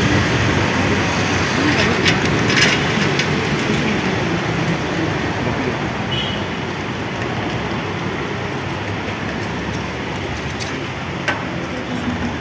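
Steady road-traffic and vehicle noise mixed with indistinct voices of people talking, with a few brief clicks.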